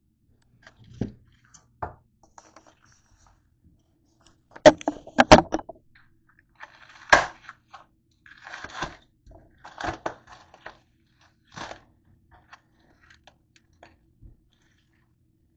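Plastic film being torn and peeled off a foam tray of raw pork chops, crackling and crinkling in irregular bursts, the loudest about five seconds in.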